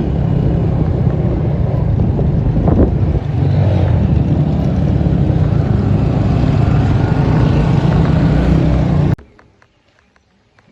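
Steady low rumble and rush of a moving vehicle, with wind buffeting the microphone. It cuts off abruptly about nine seconds in, leaving only faint ticks and quiet outdoor sound.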